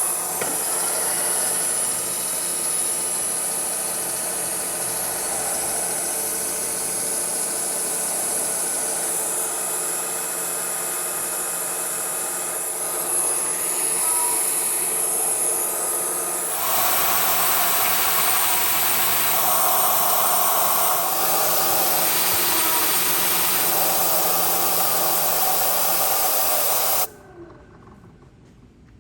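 Manual milling machine spindle running a chamfer tool through a drilled hole in steel, with mist coolant hissing. The sound grows louder and fuller about two-thirds of the way through, then cuts off abruptly near the end.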